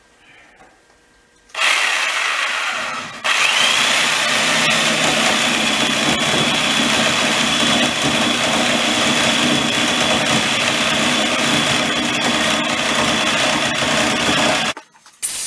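Electric drill with a long bit boring into a cedar log. The motor starts about a second and a half in, stops briefly, spins back up to a steady high whine under load, then cuts out and starts again near the end.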